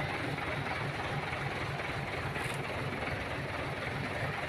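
An engine idling steadily with an even, low pulsing.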